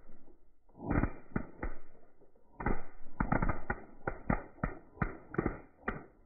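Firecrackers packed into a burning body-armor vest going off in a string of sharp, irregular bangs. A few pop about a second in, then after a short pause they come quickly, several a second, until the end.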